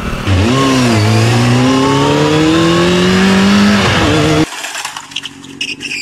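Motorcycle engine accelerating: its pitch dips briefly, then rises steadily for about three seconds, then drops and cuts off abruptly a little past the middle. Quieter street background follows.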